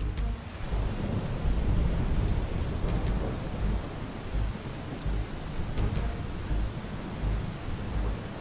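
Thunderstorm recording: steady heavy rain with rolling thunder, the rumble loudest a second or two in.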